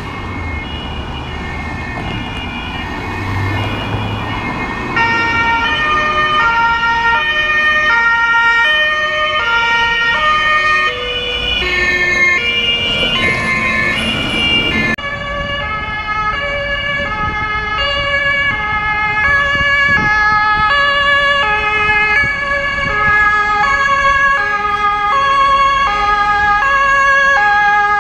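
German two-tone emergency sirens (Martinshorn) sounding their alternating high-low notes as fire and rescue vehicles pass, with two or more horns overlapping out of step and traffic noise underneath. The sound grows louder over the first few seconds, cuts abruptly about halfway through, and continues with another set of alternating two-tone horns.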